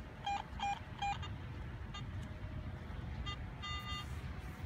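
Metal detector sounding short electronic target beeps as its coil is swept over beach sand: three quick beeps in the first second, then a few higher-pitched beeps around three to four seconds in, over a low steady background rumble.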